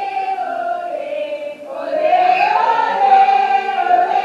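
Several voices singing together in long held notes that slide up and down in pitch, growing louder about two seconds in.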